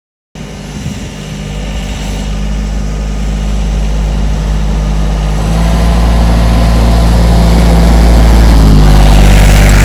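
Small farm tractor's engine running as the tractor drives toward the listener, growing steadily louder and loudest near the end.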